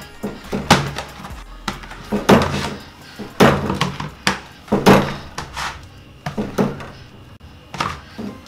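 Chapati dough being kneaded by hand in a plastic bowl: each time it is pressed and pushed down, the dough and bowl give a dull thump, in an irregular run of about a dozen knocks.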